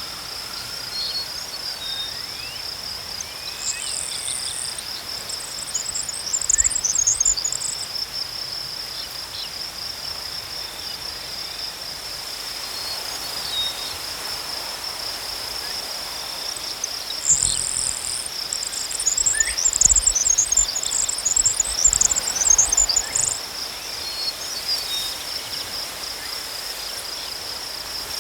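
Crickets chirping in a steady, even trill throughout. Twice, a higher, rapid chirping comes in over them for several seconds, about four seconds in and again in the second half.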